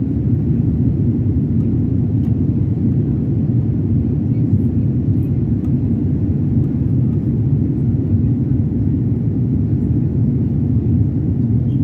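Steady low rumble of a Boeing 787's engines and rushing air, heard inside the passenger cabin while the airliner climbs after takeoff.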